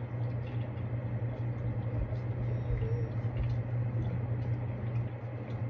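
Steady low mechanical hum with an even hiss over it, running without change.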